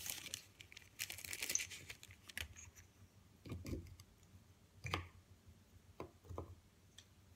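Plastic bag crinkling, then several light wooden knocks as wooden pegs are set one by one into the holes of a wooden quoits board.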